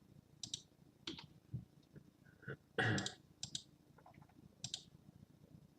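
Computer keyboard and mouse clicks: a handful of separate, faint taps a second or less apart, one louder near the middle.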